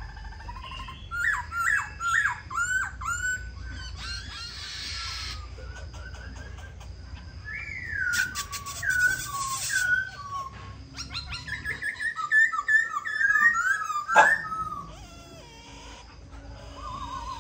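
Black-throated laughingthrush singing: loud whistled phrases of sliding, rising and falling notes, repeated in bursts. Two stretches of harsh rattling come in around 4 s and 9 s, and there is a sharp knock about 14 seconds in.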